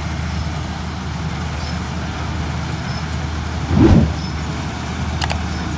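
Rice combine harvester running steadily with a deep, constant engine drone, with a brief louder low thump about four seconds in.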